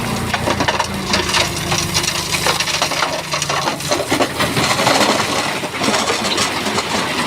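Shantui bulldozer pushing rock fill: stones clattering and grinding against each other and the blade in a dense run of knocks, over the low steady running of its diesel engine, which fades out about three and a half seconds in.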